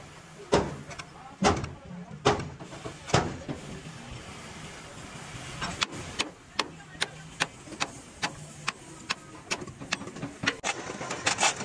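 Hammer blows on steel: four strikes about a second apart, then a quicker run of strikes at about two to three a second from about six seconds in.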